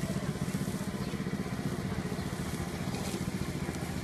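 A small motor running steadily at an even speed, with a fast regular pulse.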